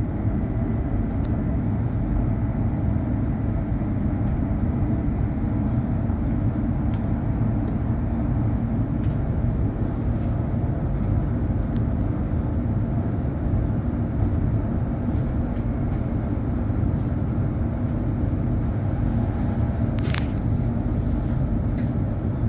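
Steady running noise inside the passenger cabin of a Norwegian Class 75 (Stadler FLIRT) electric multiple unit under way: a deep, even rumble of wheels on rail, with a few faint clicks and one brief sharper sound near the end.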